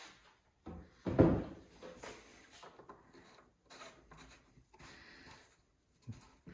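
Handling noises while fuel goes into the saw: a clunk about a second in, then faint knocks and clatter of plastic parts being handled.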